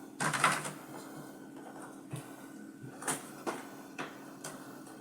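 Handling noises: a brief scrape or rustle just after the start, then several light taps and clicks spread over the following seconds.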